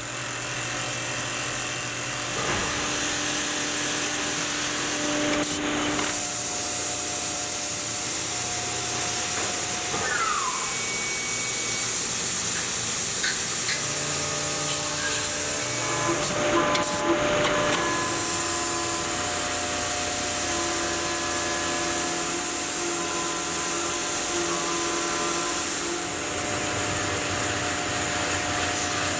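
Tormach PCNC 1100 CNC mill cutting an aluminium plate with an end mill: steady spindle and cutting tones under a loud hiss from the coolant spray nozzle. The tones shift abruptly about six and seventeen seconds in as the cut changes.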